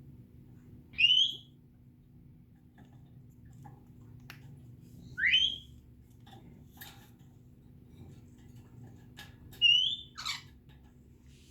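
African grey parrot whistling: three short rising whistles about four seconds apart, with faint clicks between them and a short falling squeak right after the last one.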